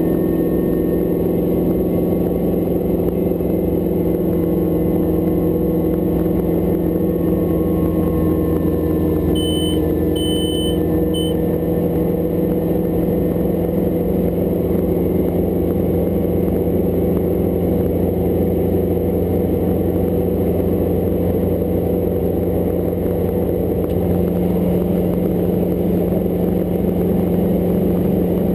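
Hughes 269 light piston helicopter in flight: the engine and rotor drone steadily with no change in pitch. About ten seconds in come three short high beeps.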